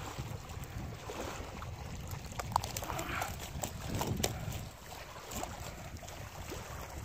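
Wind rumbling on the microphone outdoors, with a few faint scattered clicks.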